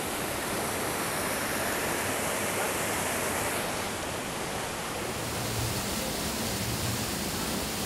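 Waterfall plunging into a pool: a steady rush of falling and churning water.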